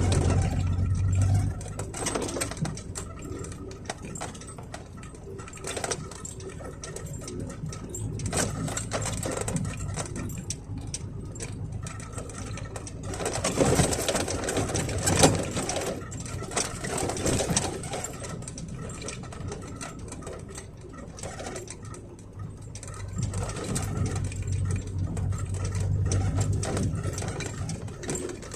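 Squeaking and creaking of a truck cab's fittings as it jolts along a rough road, with a busy patter of rattles and the low drone of the engine underneath.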